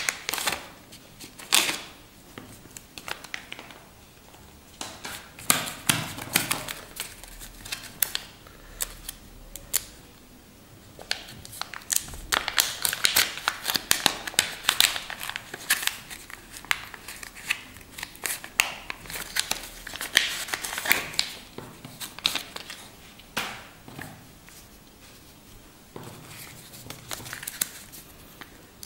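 Thin clear plastic packets being handled and pulled open: irregular crinkling and crackling, in clusters with short quieter gaps.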